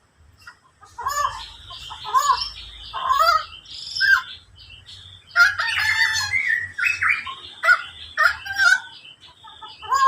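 Birds calling: a series of loud, repeated arching calls, bunched most thickly around the middle, with fainter chirping over them throughout.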